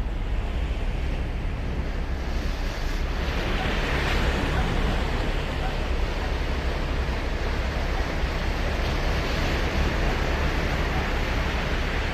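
Surf on a sandy beach: waves breaking and washing up the shore in a steady wash, swelling louder about three seconds in, over a low wind rumble on the microphone.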